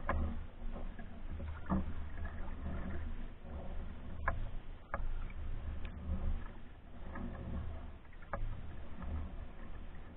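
Paddling a pack canoe: the paddle splashes and drips through the water, with a few sharp knocks, four or five in all, against the canoe, over an uneven low rumble.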